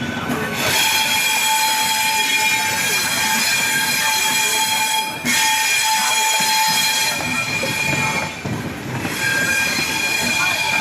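Steel wheels of a slowly arriving passenger express screeching against the rails: a steady, loud squeal of several high tones that dips briefly about five seconds in and again around eight seconds.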